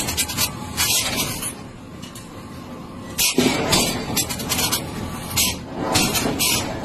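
Red-hot steel train wheel hissing in short, repeated bursts as it is cooled, with people's voices in the background.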